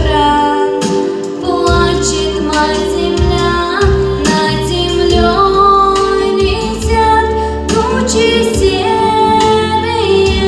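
A girl singing over a pop-style backing track with bass and a steady drum beat.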